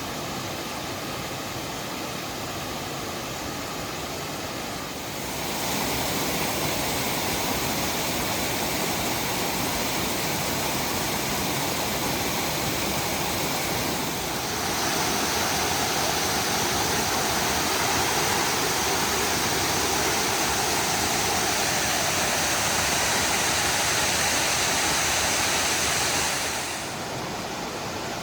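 Waterfall's steady rush of falling water, stepping up in level about five seconds in and again about halfway through, then dropping back near the end.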